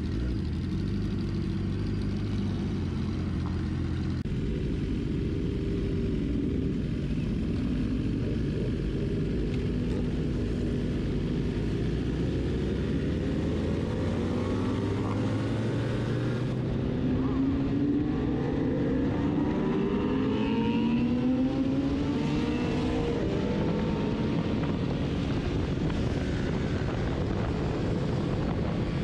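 A group of superbike engines, the camera rider's own BMW among them, running at a low steady pitch at first. From about halfway several of them rev up together in overlapping rising sweeps as the pack accelerates, over a constant rush of wind and road noise.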